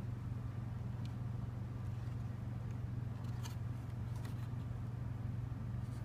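Steady low hum, with a few faint scratches and clicks from a fingernail picking glue off a hard drive's power cable connector.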